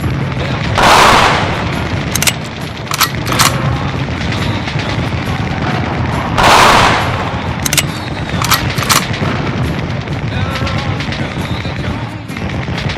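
Gunfire in a staged firefight: scattered single sharp shots, with two louder, longer blasts about five and a half seconds apart.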